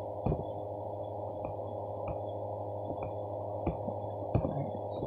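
Faint, irregular clicks of a MacBook trackpad over a steady low hum.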